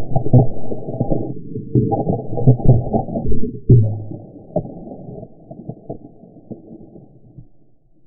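Muffled handling knocks and rubbing heard through the sealed housing of a Waterwolf underwater camera, all dull and low. The knocks come thick for about four seconds and end with a heavy one. After that they fade to a faint rumble.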